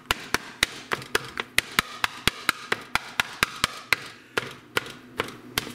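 A black plastic meat chopper striking a nonstick frying pan while breaking up ground beef: sharp taps about four or five a second, a little slower near the end.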